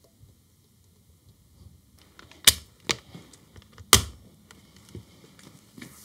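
Sharp clicks from a plug-in power strip's switch being pressed: two loud clicks about a second and a half apart, with a few fainter clicks and knocks between and after them.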